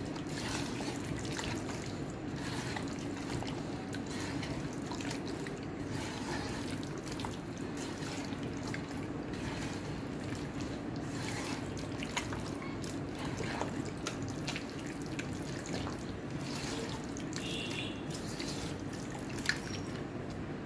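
A hand squeezing and kneading raw meat chunks in a thick, wet spice marinade in an aluminium bowl: continual wet squelching with small scattered splats and clicks, over a steady low hum.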